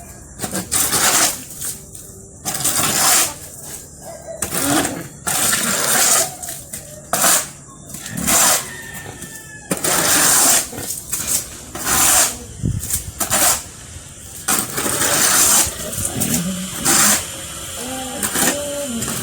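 Shovel scraping repeatedly across a pig pen floor as manure is shovelled out: a noisy scrape roughly once a second.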